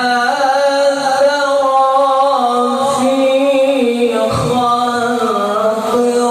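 A male qari reciting the Quran in a melodic, drawn-out chant, holding one long note and then moving into a new ornamented phrase about four seconds in.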